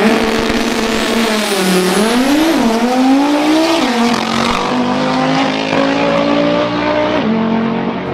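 Drag-racing cars launching and accelerating away down the strip. A motor's pitch climbs, dips and climbs again several times in the first few seconds, then rises slowly and falls away near the end.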